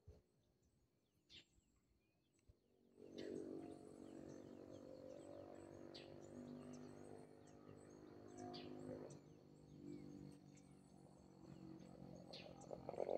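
Faint outdoor dawn ambience: many small bird chirps over a steady high insect tone and a low, even drone, coming in about three seconds in after near silence.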